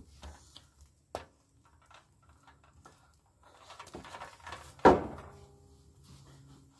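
Hands working at the plastic oil-fill cap on a Cub Cadet riding mower's engine: a small click about a second in, then scraping and rubbing, and one sharp knock a little before five seconds in.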